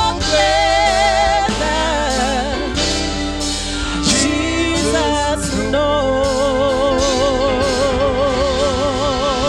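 Gospel song sung over instrumental backing, the voice ending on a long held note with vibrato in the second half.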